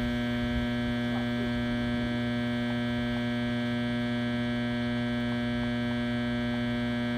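Steady hum of a generator: a low drone with many evenly spaced overtones, holding one level.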